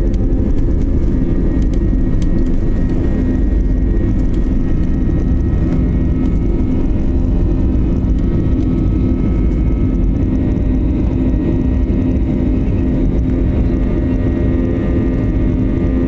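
Airliner's jet engines at takeoff thrust, heard from inside the cabin beside the wing: a loud, steady roar with a constant hum, through the takeoff roll, lift-off and initial climb.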